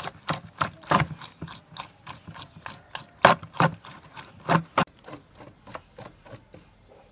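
Metal spoon scraping raw fish roe off its membrane: a run of quick, irregular scraping strokes that stops about five seconds in.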